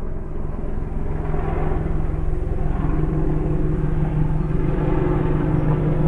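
Helicopter running: a steady engine tone over a rapid low pulsing of the rotor, growing louder over the first second or two and then holding steady.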